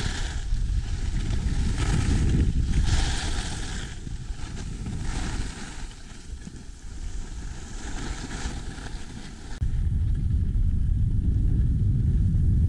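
Wind buffeting the microphone of a skier's action camera, with the hiss of skis scraping over packed snow on the turns every second or two. The wind rumble gets suddenly louder about three quarters of the way in.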